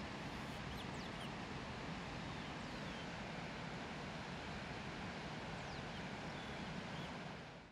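Steady rush of a waterfall, with a few faint bird chirps over it; the sound fades out near the end.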